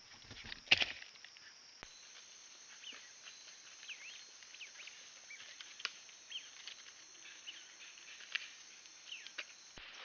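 Rainforest ambience: a steady high insect buzz with many short, scattered chirping calls from small animals, and a few isolated ticks. A single sharp rustle or knock stands out about a second in and is the loudest sound.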